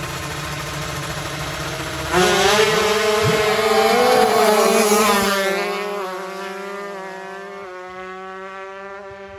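Tuned 155 cc two-stroke drag-racing motorcycle engines running steadily, then suddenly screaming at high revs about two seconds in as a bike launches, the pitch wavering through the gears before the sound fades steadily into the distance.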